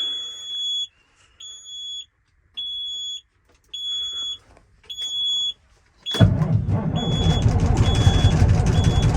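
Semi truck's dashboard warning buzzer beeping in steady pulses with the key on. About six seconds in, the truck's Cummins N14 diesel engine fires and runs, and the beeping goes on, shorter and faster.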